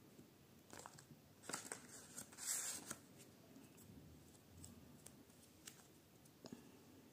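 Faint rustling and crinkling of tape-covered paper cutouts being handled, loudest a couple of seconds in, with a few small clicks and taps after.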